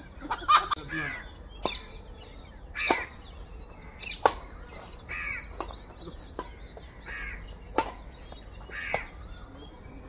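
Badminton rackets striking a shuttlecock back and forth in a rally: about seven sharp hits, roughly one every second or so.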